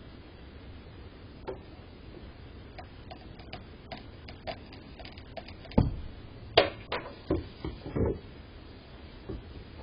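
Irregular knocks and clatter as black bears knock bird feeders around on a wooden deck: a few light taps, then several louder knocks in the second half. Heard through a home surveillance camera's microphone, with its steady low hiss.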